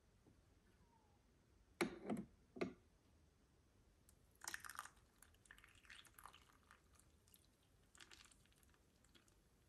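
Mostly quiet, broken by short knocks and clatters of things being handled: two loud thuds about two seconds in, a brief clatter near the middle, and a few light clicks after.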